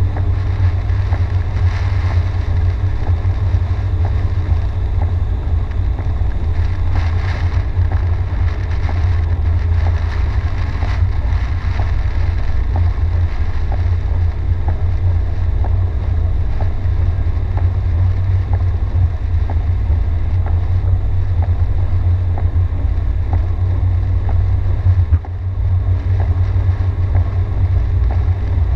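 A car driving on a rain-soaked highway, heard from inside the cabin: a steady deep rumble of engine and tyres on the wet road, with the hiss of heavy rain.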